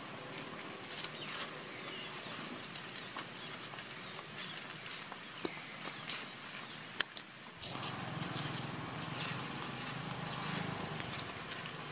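Outdoor ambience with scattered crackles and ticks of macaques moving over dry leaves, and one sharp click about seven seconds in. Soon after the click a deeper background noise comes in abruptly.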